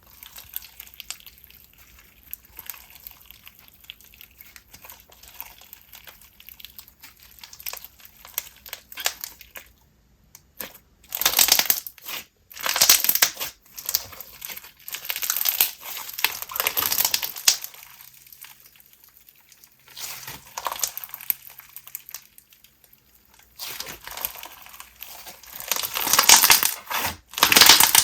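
Slushy white-glue and clear slime being squished and mixed by hand, crunchy and crackling with bubble pops. It is faint at first and comes in louder stretches from about ten seconds in.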